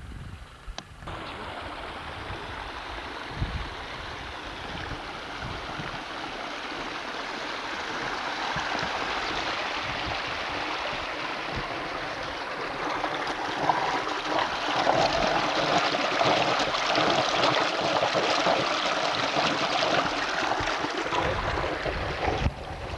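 Running water of a mountain spring stream rushing over stones, a steady rush that grows louder about halfway through.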